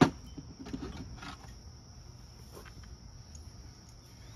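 A sharp knock as a katana is lifted off a wooden table, followed by a few faint handling sounds. A steady high chirring of insects runs underneath.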